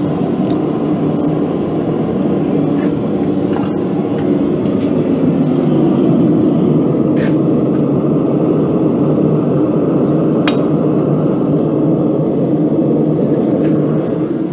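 Forge running with a steady, even rushing noise, with a few faint clinks.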